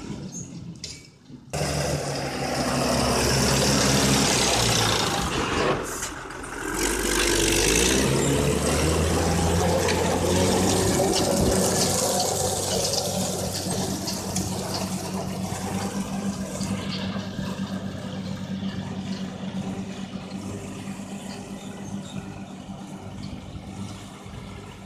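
100-horsepower Fiat tractor engine running while a Czarna Białostocka manure spreader's chain-driven beaters fling manure out the back, giving a steady rushing noise over the engine hum. The rushing is loudest from about two seconds in until about sixteen seconds, after which the engine hum is quieter and steadier.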